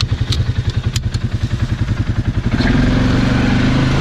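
Polaris ACE 570's single-cylinder engine running with a loping, pulsing idle, then revving up and pulling away about two-thirds of the way in, with a few light clicks and rattles early on.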